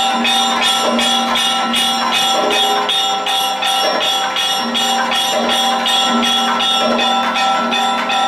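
Kathakali accompaniment music: bell-metal percussion struck in a steady beat, about three strokes a second, with the metal ringing on between strokes.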